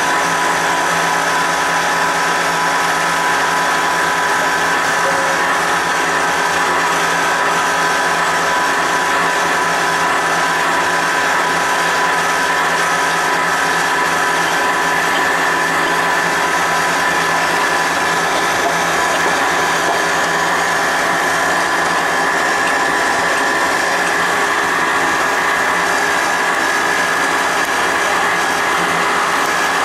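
Continuous machine noise from building work: a steady hum with several constant whining tones, unchanging throughout. It measures close to 90 dBA inside, where 45 dBA is the permitted limit.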